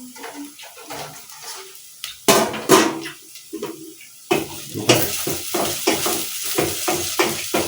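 A metal spoon stirring and scraping food frying in a metal cooking pot, with sizzling. Two loud knocks a little over two seconds in, then quick stirring strokes, about three or four a second, over the sizzle from about four seconds.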